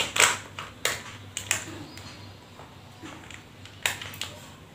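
Baby spluttering porridge out of her mouth: a few short, sharp sprays and smacks in the first second and a half, then one more near the end.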